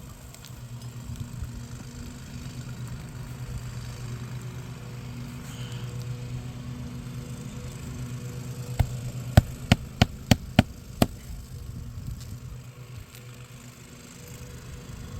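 Nailing into an asphalt shingle roof: seven sharp strikes in quick succession, about three a second, over a steady low engine hum.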